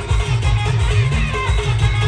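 Loud band music: a plucked-string or guitar-like melody with gliding notes over a heavy, pulsing bass beat.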